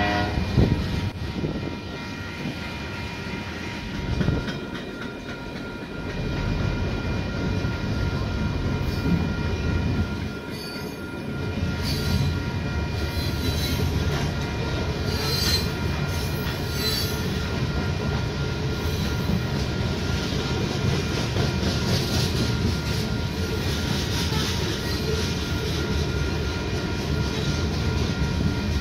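Freight train cars rolling through a grade crossing with steady wheel-on-rail rumble and clatter and occasional high wheel squeal. A horn blast trails off about a second in, and crossing signal bells ring underneath.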